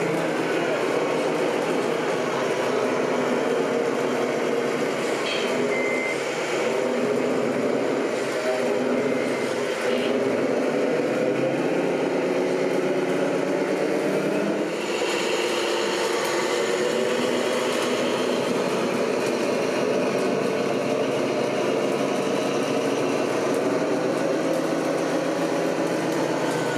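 Scale RC trucks running, a steady mix of engine-like drones that shift in pitch about halfway through.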